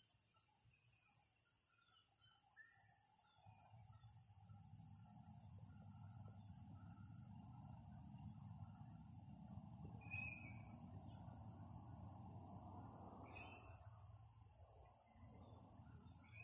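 Faint field ambience: insects trilling steadily and high, with short bird chirps scattered throughout. A low rumble comes in a few seconds in.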